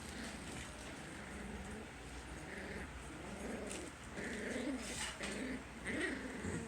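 Six-week-old Puggle puppies whimpering and grunting in short, wavering calls, more often in the second half.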